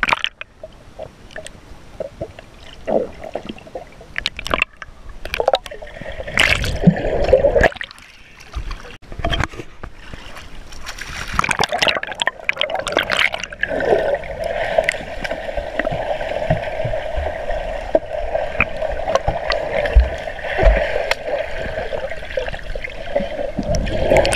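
Pool water splashing, bubbling and gurgling around an action camera held under the surface, the sound muffled as heard underwater. Uneven bursts of splashing fill the first half; from about halfway a steady muffled hum runs under the bubbling.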